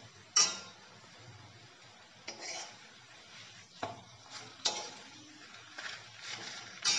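Steel spoon scraping and knocking against a kadai as a laccha paratha fries in butter: about six strokes, the loudest about half a second in, with faint sizzling between them.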